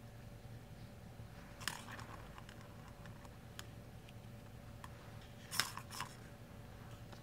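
A plastic ball clicking and rattling inside a cat's circular plastic track toy as the cat paws at it. There are a few scattered clicks, with louder rattles just under two seconds in and again at about five and a half to six seconds.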